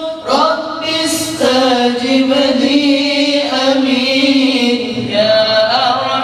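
Men's voices chanting a devotional Islamic qasidah in long, slowly sliding held notes, with short breaks between phrases.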